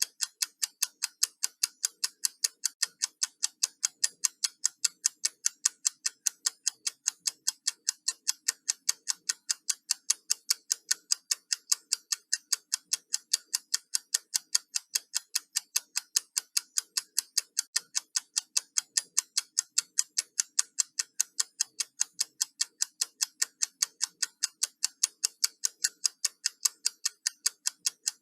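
Countdown clock ticking: sharp, bright ticks at a rapid, perfectly even rhythm.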